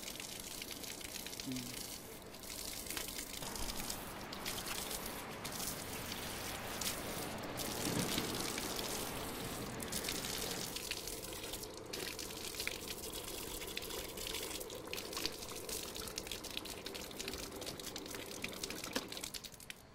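Water running from the chrome lever faucet of a Drought Master water-generator barrel, a steady splashing stream.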